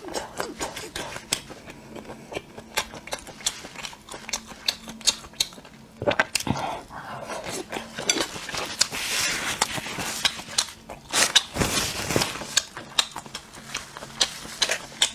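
Close-miked chewing and lip smacking of a mouthful of grilled shrimp, with many sharp wet mouth clicks. Near the end, wooden skewers knock together as a bunch is picked up.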